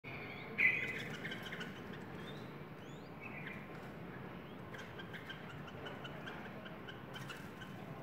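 Caged yellow-vented bulbul (trucukan) calling: a loud call just under a second in, a few more calls, then a run of short repeated chirps, about three or four a second, in the second half. A brief click comes near the end.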